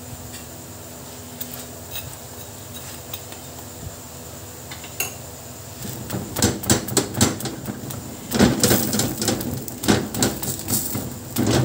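A metal spatula clinking and knocking against a large tawa griddle as parathas are turned and pressed while they crisp. It is fairly quiet at first, with a few clicks, then a busy run of sharp knocks and scrapes begins about halfway through.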